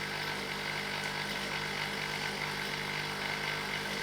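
Silvercrest SEM 1100 E1 espresso machine's pump humming steadily while it brews a double espresso.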